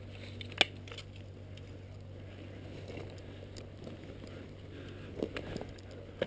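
Rustling movement through dry forest undergrowth over a steady low hum. There is one sharp snap about half a second in and a few softer clicks near the end.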